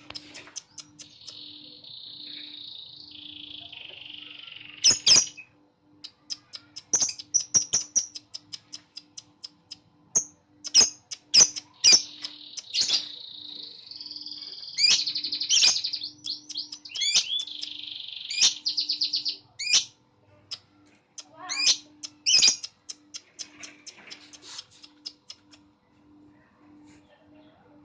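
Lovebird calling in irregular bursts of sharp, shrill chirps and short rattling trills, with quieter stretches between. A faint low tone pulses evenly underneath, about twice a second.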